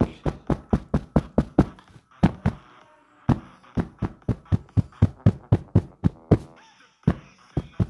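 Rapid knocking, about five sharp knocks a second, in runs broken by two short pauses. Faint beeps from a musical toy sound between the knocks.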